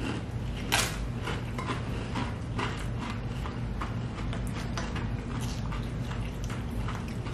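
Eating sounds close to the microphone: irregular clicks and crunches, about three a second, with a sharper click about a second in, over a steady low hum.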